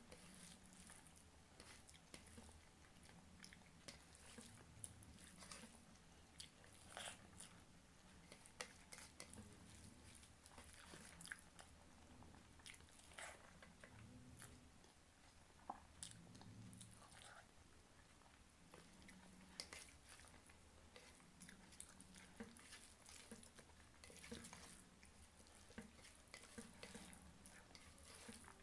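Faint wet chewing and mouth sounds of someone eating rice and egg curry by hand, with the soft squish of fingers mixing the rice and curry, and scattered irregular clicks.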